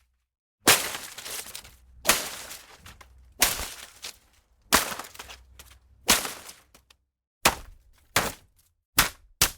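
Leafy foliage and undergrowth being struck and whipped, about nine sharp hits, each with a leafy rustle. The first five are evenly spaced about a second and a half apart, with longer rustling tails. Four quicker, shorter swipes follow near the end.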